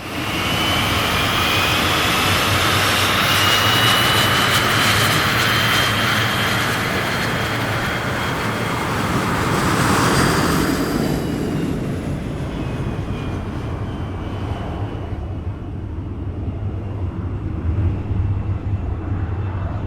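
Airplane taking off: loud engine noise with a high whine that rises slightly as it builds. About eleven seconds in, the whine and hiss fade, leaving a low rumble as the aircraft moves away.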